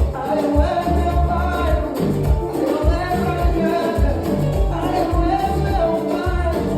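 Dance music with a singing voice over a steady bass beat.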